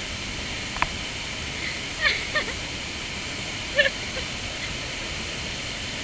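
Steady rush of a jungle waterfall. A few brief high-pitched sounds break through about a second, two seconds and four seconds in.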